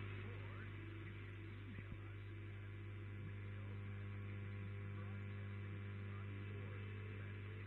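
Shortwave broadcast reception carrying dead air between programmes: a steady low hum with a ladder of overtones over even band hiss, with no voice or music on the carrier.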